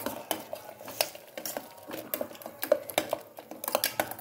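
A steel spoon stirring thick masala paste in a stainless steel pressure cooker, with irregular clinks and scrapes of metal on metal.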